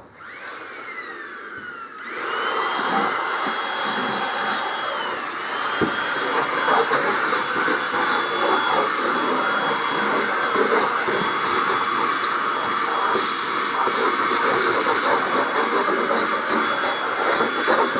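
A small vacuum cleaner whines up to speed about two seconds in and runs steadily with a high whine and hiss while sucking up metal shavings left from grinding. Its pitch dips briefly a few seconds after it comes up to speed.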